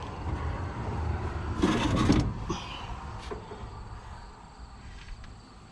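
Metal parts being handled on farm machinery: a loud scrape or clatter about a second and a half in, then a few lighter knocks and clicks, over a low rumble.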